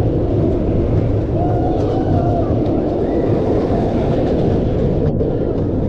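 Roller coaster car running along the track at speed: a loud, steady rumble of wheels on steel rail mixed with wind rushing over the rider's camera.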